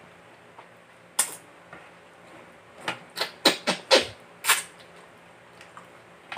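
Wet sucking and slurping mouth sounds of someone eating a fish head by hand: one about a second in, then a quick run of about six between three and five seconds.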